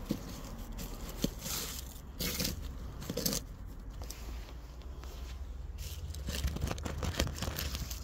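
Handling noise from a phone held against clothing: fabric and skin rubbing over the microphone in irregular rustling, scraping swishes, with a few sharp clicks.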